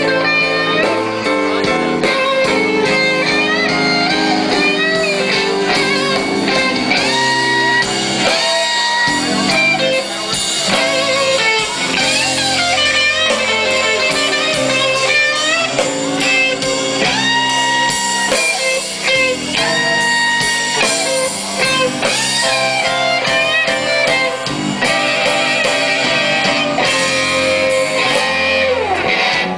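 A live blues band playing, with electric guitar to the fore.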